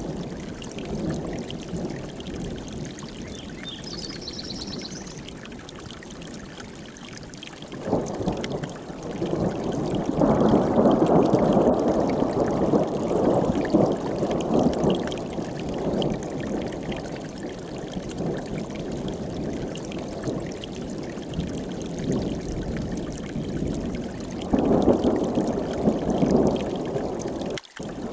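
Mountain stream rushing steadily, with rolling thunder swelling up about eight seconds in and rumbling for several seconds, and a shorter roll near the end. A brief high bird trill sounds about four seconds in.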